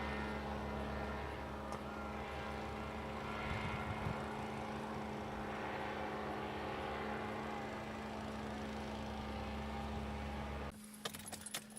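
Car engine running steadily with a low hum; it cuts off abruptly near the end.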